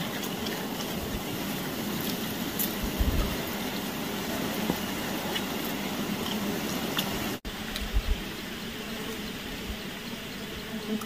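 Steady outdoor background noise with no clear single source. There are short low thumps about three seconds in and again about eight seconds in, and a brief dropout just after seven seconds.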